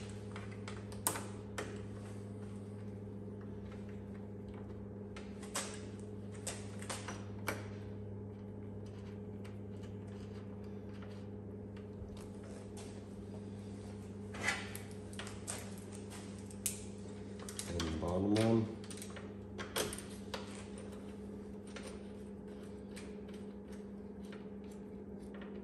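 Scattered clicks and knocks of enclosure parts and hardware being fitted to a side-by-side's door, over a steady electrical hum. About eighteen seconds in, a brief rising whine is the loudest sound.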